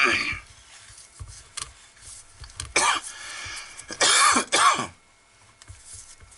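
A man coughing and clearing his throat: three short, rough bursts, one about three seconds in and two close together about four seconds in.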